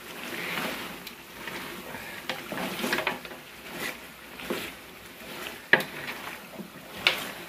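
Wooden spoon stirring and scraping chicken pieces frying in masala in a large metal pot, with irregular knocks of the spoon against the pot, the sharpest about six seconds in.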